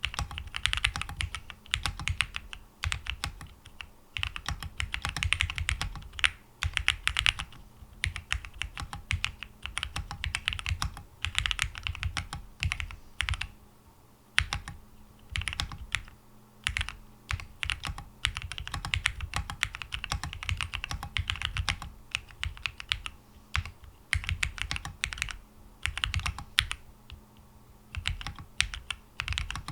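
Typing on a Luna75 gasket-mount mechanical keyboard with TTC Wild 42g linear switches, a PC plate and PBT keycaps: dense runs of keystrokes with short pauses between bursts.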